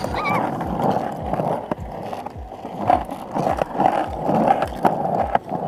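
Skateboard wheels rolling over rough asphalt: a steady grinding rumble with low knocks about twice a second.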